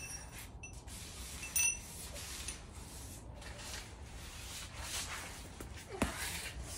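Quiet handling noise of hand tools and metal parts under the truck's front suspension: faint rubbing, a short clink about one and a half seconds in and a sharp click near the end.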